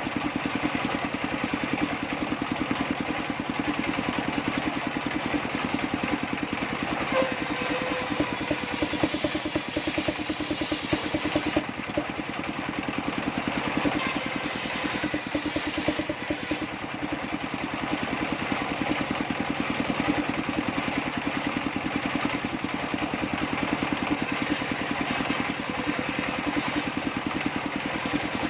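Engine driving a circular saw table, running steadily with a fast, even pulse.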